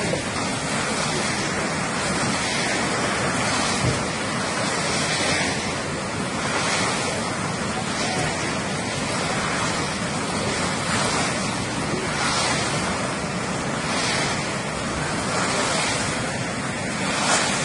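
Muddy floodwater rushing down a swollen river, a steady churning rush of water, with wind buffeting the microphone.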